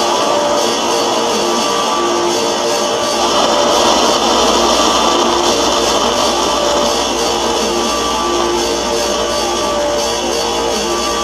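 Experimental noise music: a loud, dense wall of distorted noise with short held notes flickering in and out at several pitches. A deep rumble joins underneath about three seconds in.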